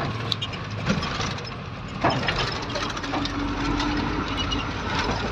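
Truck engine running at low speed, heard from inside the cab, with a few sharp rattles or knocks about one and two seconds in.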